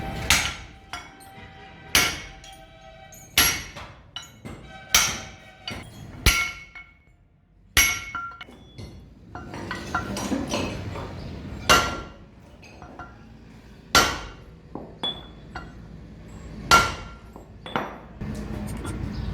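Hammer blows on steel truck front-wheel spindle parts: about ten sharp strikes at uneven spacing, each with a brief metallic ring.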